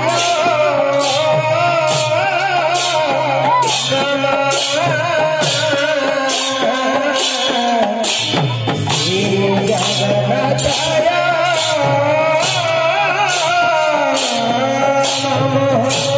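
Bengali-style Harinam kirtan: a man sings a devotional chant into a microphone over a khol barrel drum and small brass hand cymbals (kartal) clashing in a steady beat, about two clashes a second.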